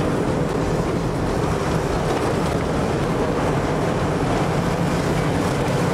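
Rally car engine running steadily at speed, with tyre and gravel noise from the dirt road, heard from inside the cabin.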